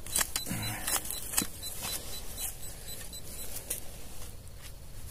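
Digging and scraping in soil to uncover a buried metal-detector target: a string of irregular short scratches and clicks.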